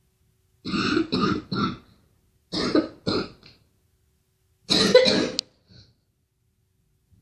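A girl coughing in short fits: a quick run of three coughs, then two, then one more a little after halfway, with a faint last one after it.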